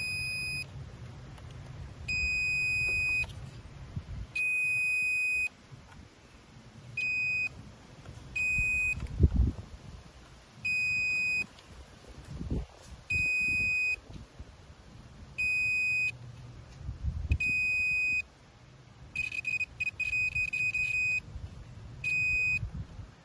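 Digital multimeter's continuity beeper giving about a dozen separate steady high-pitched beeps, each lasting half a second to a second, as the probes are touched across one automotive fuse after another. Each beep shows that fuse has continuity and is intact. A couple of the beeps near the end stutter as the probe contact breaks, and low knocks of the probes being handled fall between the beeps.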